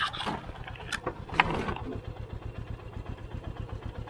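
Motorcycle engine running at low revs with an even, rapid thudding, with a few sharp clicks and knocks in the first two seconds.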